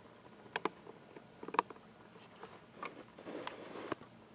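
A few faint, sharp clicks spread out over several seconds, the loudest about a second and a half in, with a little soft rustling shortly before the last one.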